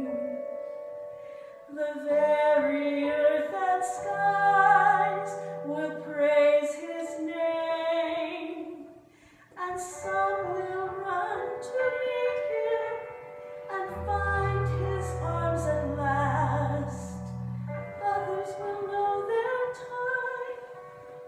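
A woman singing a slow solo song into a microphone, in long held notes with vibrato, with low sustained accompaniment notes beneath; she breaks off briefly about nine seconds in.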